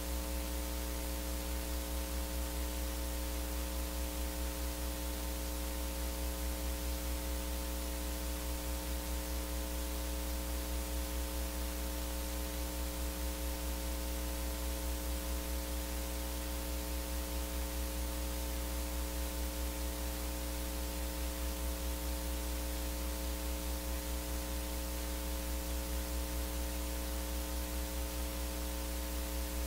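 Steady electrical hum with hiss, a mains hum in the sound system or recording chain, unchanging throughout.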